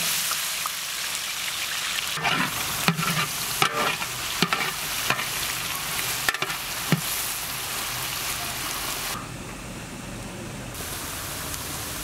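Finely chopped onions sizzling as they fry in hot oil in a large metal pot, with a metal ladle scraping and knocking against the pot as they are stirred, several times in the first seven seconds. The sizzle grows quieter about nine seconds in.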